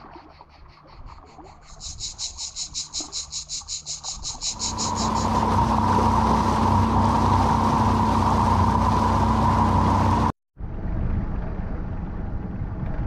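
Cicadas singing in a rapid pulsing buzz, about seven pulses a second, growing louder. About four and a half seconds in this gives way to the steady drone of a boat's motor with wind and water noise, which cuts out for an instant about ten seconds in.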